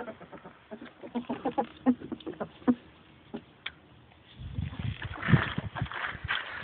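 Hollow scratching and tapping of a ferret scrambling inside a plastic pipe, a quick run of knocks in the first few seconds. Then a low rumbling and rustling in the second half as the phone is moved about.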